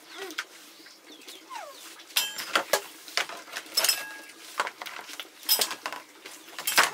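Metal dishes and pots clinking and clanking as they are handled, with a sharp ringing clank about every one and a half seconds among lighter clicks.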